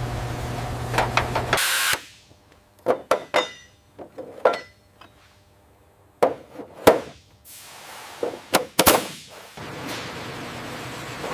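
Airframe repair work sounds: a power tool runs steadily, then stops with a short loud hiss about a second and a half in. Sharp knocks and clanks of hand tools on metal follow in three clusters, one with a light ringing. A steady running sound returns near the end.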